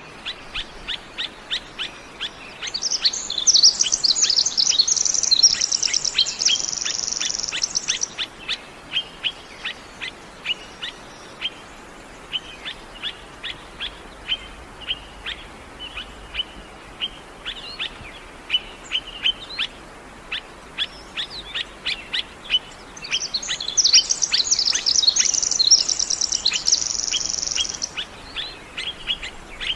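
Small songbirds: short high chirps repeated a few times a second, broken twice by a louder stretch of fast, rich warbling song lasting several seconds.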